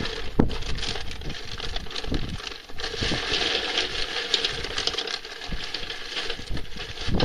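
Charcoal poured from a paper bag into a kettle grill: a dense rattling clatter of pieces tumbling against the metal bowl and each other, thickest about three to five seconds in.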